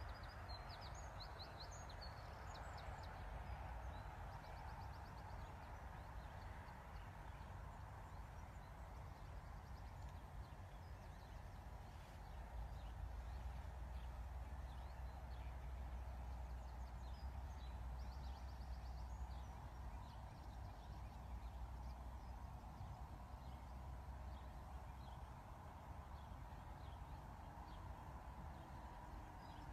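Faint open-air ambience: a steady low rumble and hiss, with a few distant birds twittering in quick high chirps near the start and again later.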